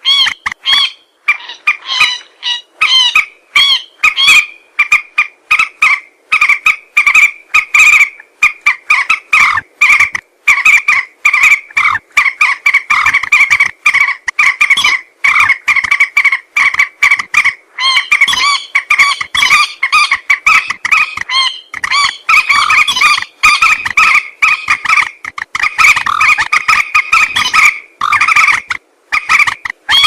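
Common moorhens calling: a dense, unbroken run of short calls, several a second.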